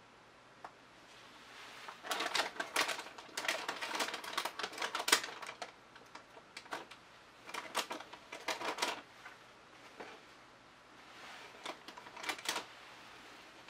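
Trigger spray bottle of isopropyl alcohol pumped in quick runs, short clicking spray strokes in three bursts, the first and longest about two seconds in, misting the wet paint to pop surface bubbles and bring up cells.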